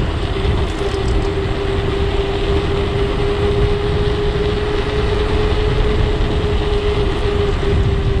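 Wind rushing over the microphone and tyre rumble from a dirt jump bike rolling fast downhill, with a steady hum held almost throughout.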